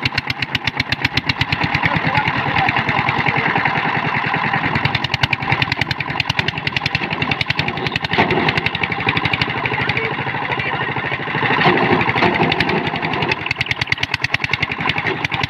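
Single-cylinder diesel engine of a two-wheel power tiller running under load with a rapid, even chug, the machine bogged in mud with its wheels spinning. It grows louder briefly about twelve seconds in.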